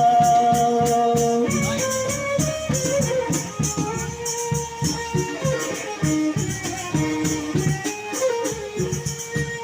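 Live rudat music: a steady beat of drums and rattling percussion under a melody line that holds long notes, the longest in the first second and a half.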